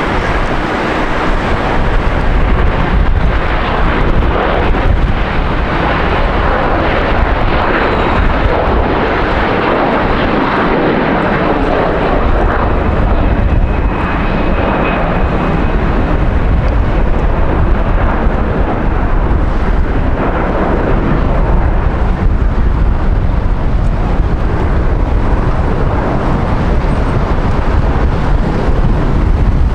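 Jet airliner's engines, loud and continuous, with a deep rumble under a broad roar: a close pass on landing or takeoff.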